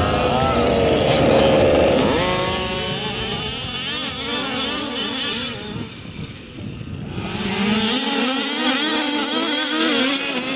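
Several 1/5-scale gas RC cars' small two-stroke engines revving up and down as they race, their pitches rising and falling over one another; briefly quieter about six seconds in.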